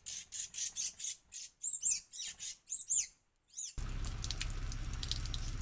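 Small birds chirping in a quick series of short, high calls, some rising and falling in pitch. About two-thirds of the way in, the calls stop abruptly and a steady hiss with a low hum takes over.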